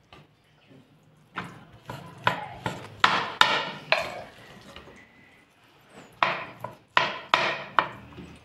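A serving spoon knocking and scraping against a plate and a cooking pot while rice is served, with short knocks in two quick runs, each with a brief ring.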